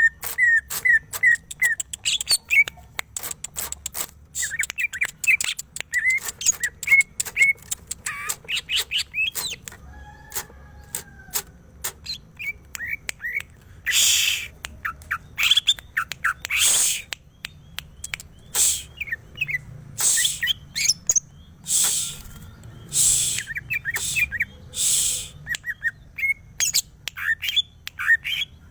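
Greater green leafbird calling: quick runs of short chirps and sharp clicks, broken in the middle by several harsh, rasping bursts.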